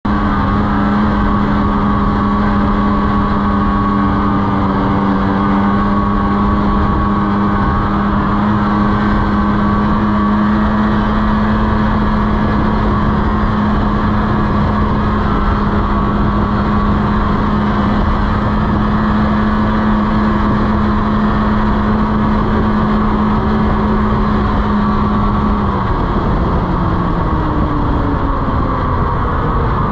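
Snowmobile engine running at a steady high speed, its pitch dropping over the last few seconds as it comes off the throttle.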